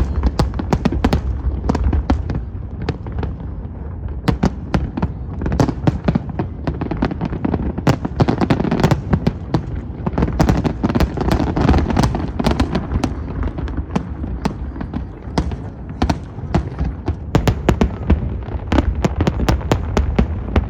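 Fireworks display: a dense, continuous barrage of sharp bangs and crackles, many a second, over a steady low rumble.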